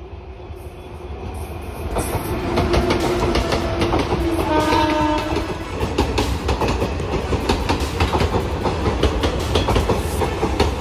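Indian Railways passenger train with AC coaches passing close by. A dense run of wheel clatter over rail joints and points builds about two seconds in and keeps on. A short train horn sounds around four to five seconds in.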